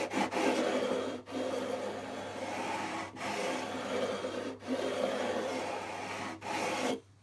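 A sandpaper-faced 14-inch radius block rubbing lengthwise over stainless steel frets, levelling them. It runs as long even strokes of one to two seconds each, five in all with brief breaks between, and stops just before the end.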